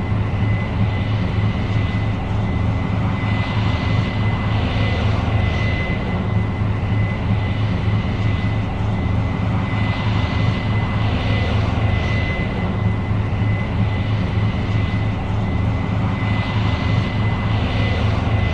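Case IH 8230 Axial-Flow combine running steadily while harvesting soybeans: a heavy engine drone with a steady high whine over it and a hiss that swells and fades every second or two.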